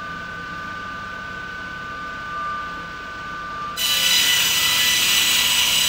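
Auto-feeding board cutting saw running with a steady high whine. Nearly four seconds in, the saw cuts a board fed through by its rollers, a much louder cutting noise lasting a couple of seconds.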